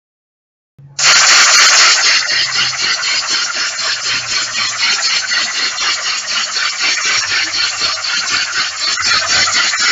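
Spaceship sound effect: a steady, rasping, rattling mechanical noise that starts about a second in and keeps going.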